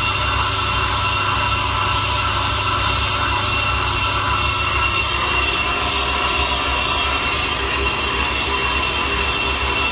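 Ammco brake lathe turning a brake disc while its cutting bits skim the disc faces: a steady high-pitched metallic whine over the low hum of the lathe.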